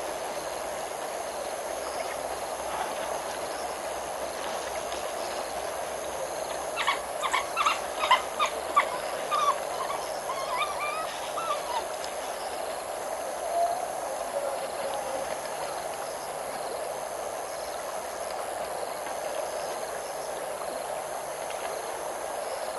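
A bird calling in the wild: a rapid run of short, sharp notes lasting about three seconds, then a few gliding notes and one more call a little later, over a steady background hiss.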